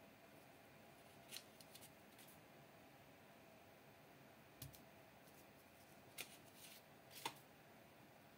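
Near silence broken by a few faint taps and paper rustles as fingers press and shift the cut-out paper screens of a hand-drawn mock phone. There is a soft low thump a little past the middle, and the loudest tap comes about seven seconds in.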